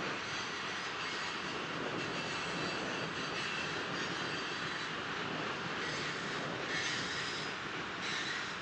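Covered grain hopper cars of a long freight train rolling past: a steady rolling noise of steel wheels on rail, with faint high wheel squeal now and then.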